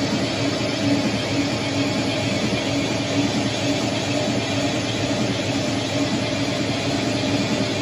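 Large rugby stadium crowd, a dense steady roar of many voices with a held hum running through it.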